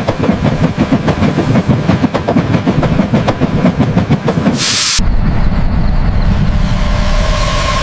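Steam locomotive running: rapid clattering for about five seconds, then a short burst of steam hiss. After that it changes abruptly to a steady low rumble, with a faint steady tone coming in near the end.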